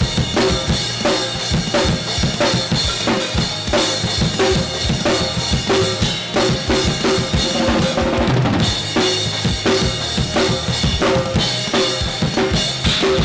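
SJC acoustic drum kit played in a fast, steady beat: kick drum, snare and cymbals, with the cymbal wash dropping out briefly about eight seconds in.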